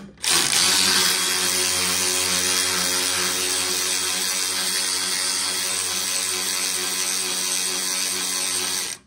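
Cordless electric ratchet running steadily under load for about nine seconds as it drives down a bolt on an air-spring bracket, then stopping abruptly.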